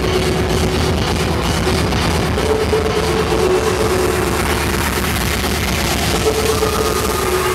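Music with a steady, dense beat and a repeating mid-pitched melody line.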